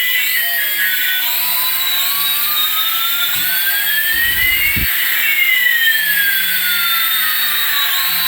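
Electronic jet-engine sound effect: a steady hiss with two tones gliding in opposite directions, one rising and one falling, that cross about halfway through.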